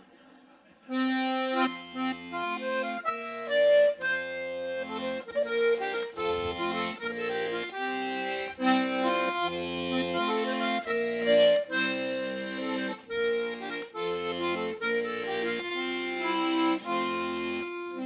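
Hohner button accordion (melodeon) playing an instrumental introduction: a melody over alternating bass and chord notes, starting about a second in.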